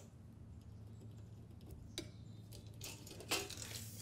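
A few light clicks and knocks of an aluminium LED strip holder being handled and set against a miter saw's fence, the loudest about three seconds in, over a faint steady low hum.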